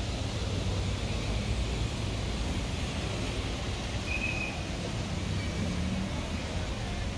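City street traffic noise: a steady low rumble of vehicle engines under a general hiss, with a brief high-pitched tone about four seconds in.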